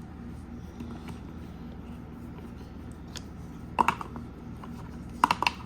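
A few light clicks and taps from plastic Play-doh toys and molds being handled, in two short clusters about four and five and a half seconds in, over a steady low hum.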